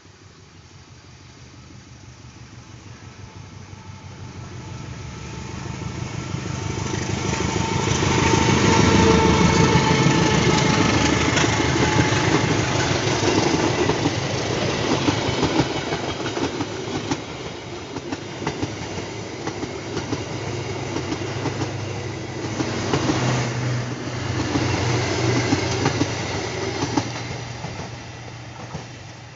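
Diesel-hauled passenger train passing close by at slow speed, held back by a signal. It grows to its loudest about a third of the way in, then the coaches roll past with wheels clicking over the rail joints, and the sound fades near the end.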